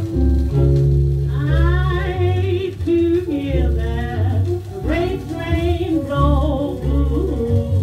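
1938 small-band jazz-blues recording played from a 78 rpm shellac record on a turntable. A wavering lead line with vibrato sounds over a walking bass, piano and drums.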